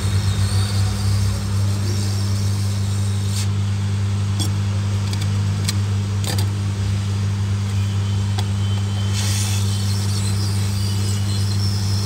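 Hot air rework gun blowing steadily with a low hum while it heats solder paste under a small coil on a phone motherboard, with a few faint clicks in the middle.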